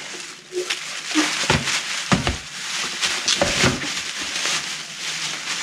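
Plastic bags rustling and crinkling as hands rummage through a bagged garbage can, with a string of sharper crackles.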